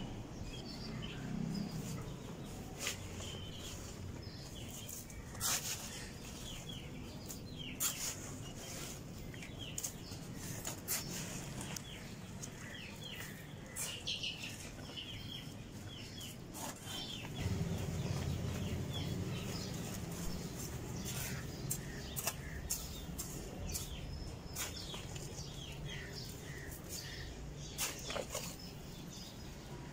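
Chicks cheeping in short, falling peeps, over scattered clicks and rustling as soil from a woven sack is handled and spread by hand on a concrete floor; the rustling grows louder about halfway through.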